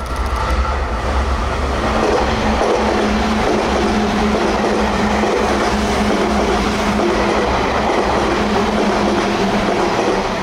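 Sotetsu 8000-series electric commuter train running past close by: a steady loud rumble of steel wheels on rail, with a steady low hum joining about two seconds in.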